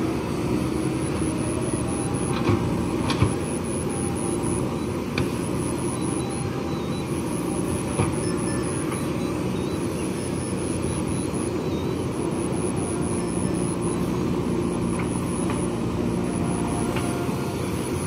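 JCB backhoe loader's diesel engine running steadily as the backhoe arm digs and swings, with a few sharp clanks from the arm and bucket, the loudest about three seconds in.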